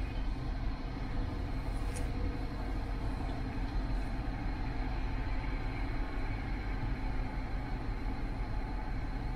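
Steady low rumble of a police patrol car idling, heard from inside the cabin.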